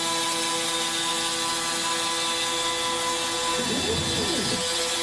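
CNC router spindle running a 32 mm two-flute surfacing cutter through MDF: a steady whine over a hiss of cutting. About three and a half seconds in, a tone falls in pitch and rises again within a second as the machine slows and changes direction.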